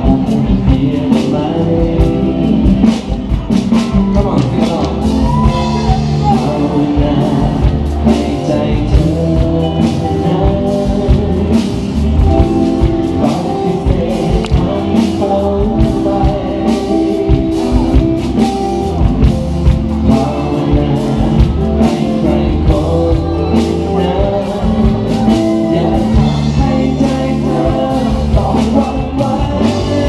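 Live band playing a song, with a male lead singer singing over electric guitars, keyboard and a drum kit keeping a steady beat.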